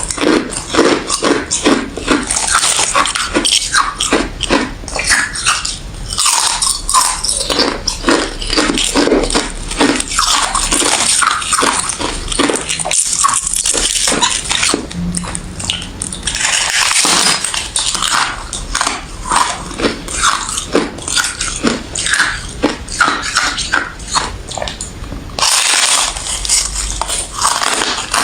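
Close-miked crunching of crushed ice and thin frosty ice being bitten and chewed, a rapid run of loud crisp cracks with a few brief pauses.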